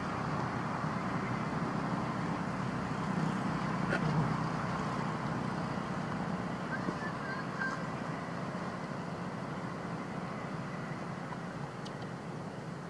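Steady outdoor background noise: a low rumble with a hiss over it, easing slightly toward the end.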